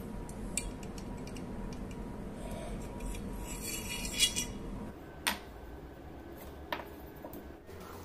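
A few sharp metal clinks and taps as a katana replica's steel blade and brass collar are handled on a wooden workbench, with a brief scrape just before the loudest clink. A steady low hum runs underneath.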